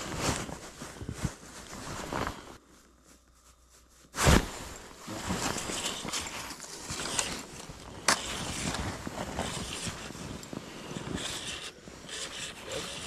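Rustling and handling noise from clothing close to the microphone as an angler works a spinning reel over an ice hole. A sharp knock comes just after four seconds in, and a smaller click about eight seconds in.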